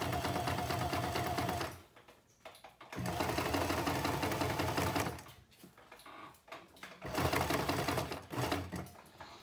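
Sewing machine stitching a seam in three short runs, stopping and starting again twice.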